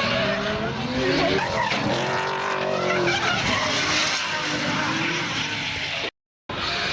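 Drift cars' engines revving up and down at high revs over the screech of sliding tyres. The sound cuts out completely for a split second about six seconds in.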